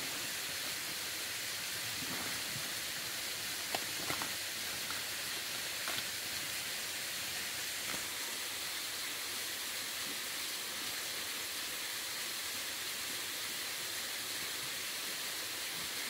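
Steady rushing hiss of a nearby waterfall, with a few faint knocks about four and six seconds in.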